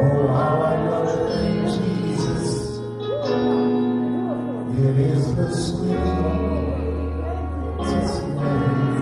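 A man sings a slow gospel song into a microphone over an instrumental backing of long held low notes.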